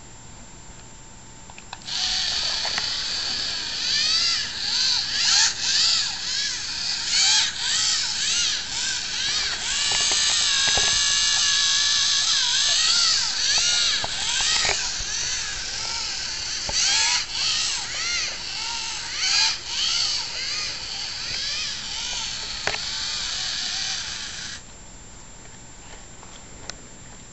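LEGO Mindstorms NXT robot's drive motors whining, the pitch constantly sliding up and down as the motor speeds change while it steers along a line. The whine starts about two seconds in and stops a few seconds before the end.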